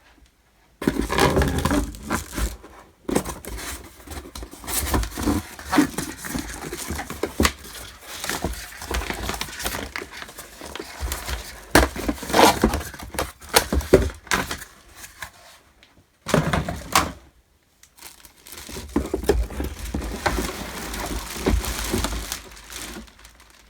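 Packaging crinkling and rustling as a boxed vacuum cleaner is unpacked, with many sharp clicks and knocks from handled plastic parts. It comes in spells with short pauses.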